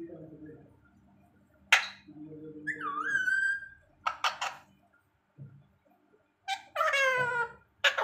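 Alexandrine parakeet calling in several separate bursts: a sharp squawk about two seconds in, a whistled call that dips and rises, two short calls, and a longer harsh call falling in pitch near the end.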